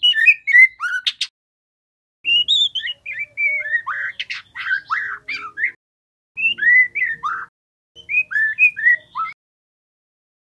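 Juvenile white-rumped shama (murai batu trotol) singing: four phrases of clear slurred whistles mixed with quick chattering notes, with short pauses between them.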